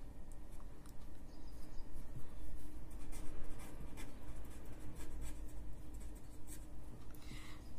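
Marker pen writing on paper: a run of short, light scratching strokes as a word is written out by hand.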